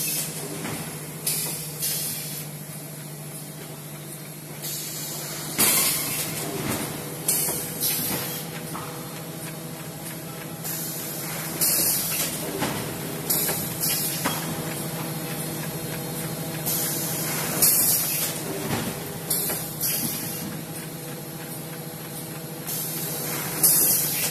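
Paper core (tube) making machine running: a steady hum of the machine under short hissing bursts that come every second or two at an uneven pace.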